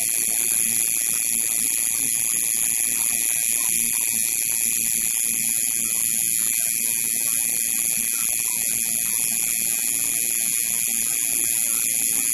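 Coil tattoo machine buzzing steadily while the needle works into the skin.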